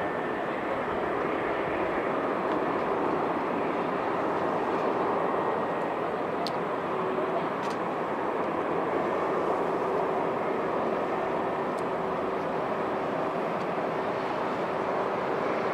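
Boeing 747-400's four jet engines running as a steady, even roar. A faint steady hum joins in about halfway through.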